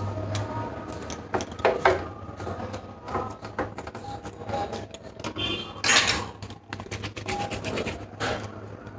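Hand-handling sounds as fingers press and smooth a flour-dough seal around the lid of a tender coconut: scattered soft rustles and small clicks, with a steady low hum underneath.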